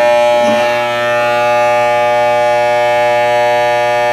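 Corded electric hair clippers running with a steady, even buzz.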